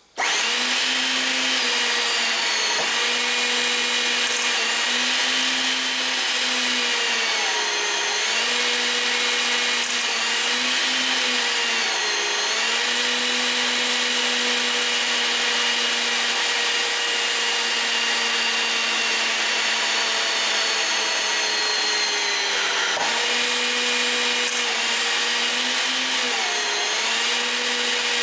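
HYTORC hydraulic pump running under load as it drives four Avanti 8 hydraulic torque wrenches tightening clamp bolts. It starts right at the beginning as a steady hum over a strong hiss, and the hum sags briefly in pitch every few seconds.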